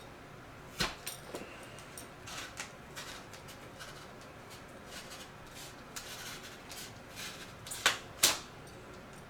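Flashlight packaging being handled: scattered light rustles and small clicks, a sharp snap under a second in, and two loud snaps close together near the end.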